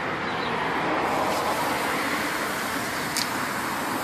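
Steady outdoor background hiss, with one light click about three seconds in.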